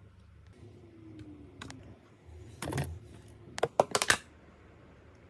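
Sharp clicks of tableware knocking together while eating, several in quick succession about three and a half to four seconds in. Under them is a faint low rumble, with one louder rasping sound about two and a half seconds in.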